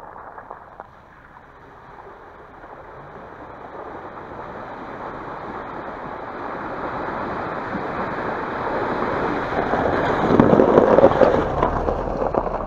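Renault Duster driving through a flooded road of meltwater and slush, its tyres churning and splashing through water and broken ice. The noise grows steadily louder as the car approaches and is loudest as it passes, shortly before the end.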